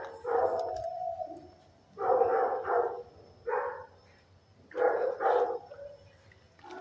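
Dog barking in a shelter's kennels, four bouts of drawn-out barks about a second or two apart.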